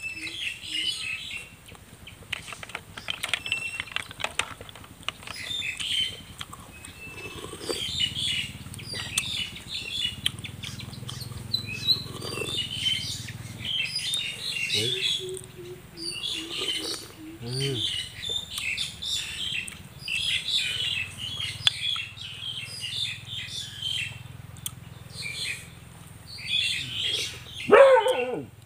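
Small birds chirping repeatedly, over soft clicks of snail shells and toothpicks being handled. Near the end, a loud cry falls in pitch.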